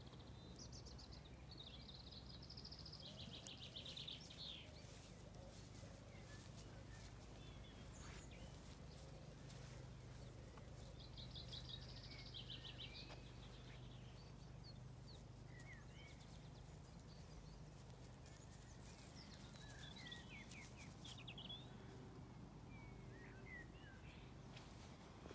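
Faint songbird song: a few short songs with rapid trills, about three seconds in and again around twelve seconds, then scattered chirps later on, over a faint steady low hum.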